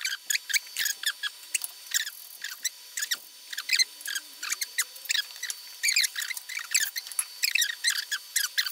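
Cleaning slag off a fresh 6013 stick weld on a steel block: a chipping hammer and a steel wire brush working the bead in quick, scratchy, irregular strokes, about three or four a second.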